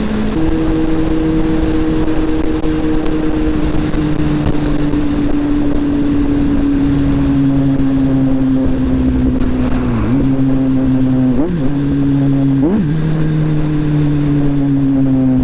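Kawasaki Z800's inline-four engine through a Two Brothers Tarmac exhaust with the baffle removed, running under way at fairly steady revs. The pitch sinks slowly, dips and recovers quickly three times in the second half, and falls away near the end as the throttle eases off.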